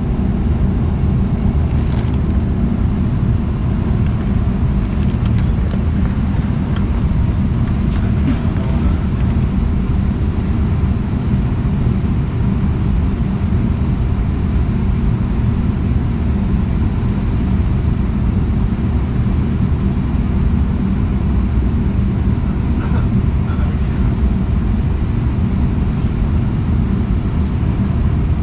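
Steady loud rumble and low hum of an Airbus A319's cabin on the ground, the aircraft's air and systems running, with a few faint clicks.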